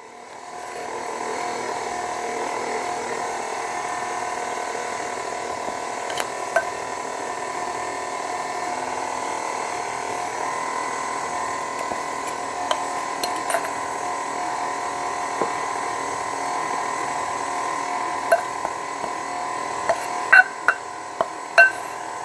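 KitchenAid Artisan stand mixer running on a low speed, its electric motor giving a steady whine as the beater works pumpkin batter while flour is added. The whine rises over about the first second, then holds steady. A few light clicks and clinks come through, several near the end.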